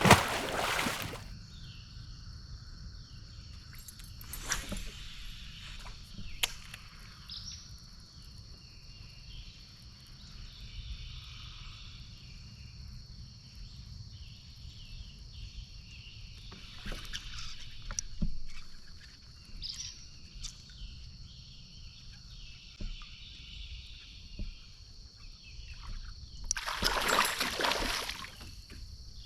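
Kayak paddle strokes swishing and splashing in the water now and then, the loudest at the very start and near the end. Under them, insects buzz and chirp steadily.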